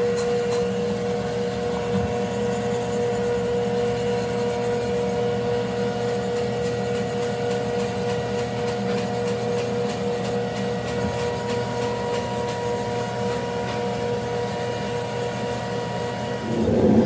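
A machine running steadily with a constant hum-like whine at one pitch; a second, higher tone joins about two-thirds of the way through.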